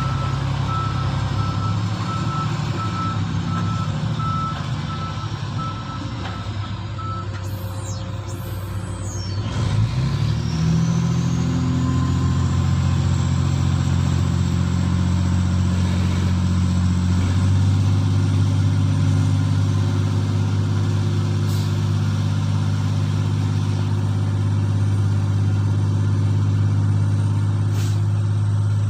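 Large diesel engine of a Komatsu PC2000 excavator running under load, with a travel alarm beeping steadily for the first several seconds. About ten seconds in, the engine note rises and a high whine climbs and then holds; the engine steps up again a little past halfway.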